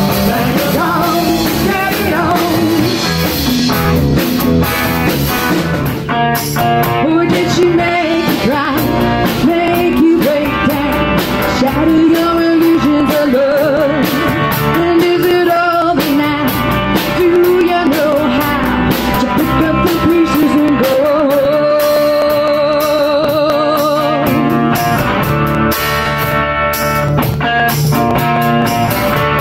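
Live rock band playing: a woman singing over electric guitars, bass guitar and a drum kit.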